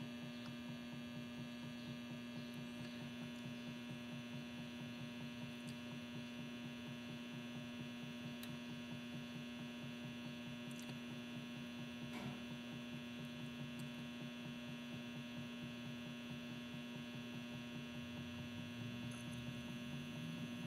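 Battery charger humming steadily at full output, a low electrical hum with a dense stack of overtones above it.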